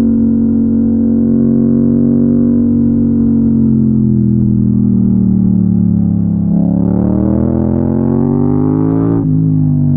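Yamaha MT-07's 689 cc parallel-twin engine under way. Its note sinks slowly for several seconds, then rises steadily under acceleration and drops sharply at an upshift near the end.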